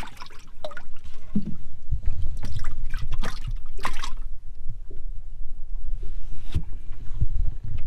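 Water splashing and trickling in a fishing boat's live well holding crappie, with sharp knocks and splashes as the hatch is handled. A low rumble runs underneath from about two seconds in.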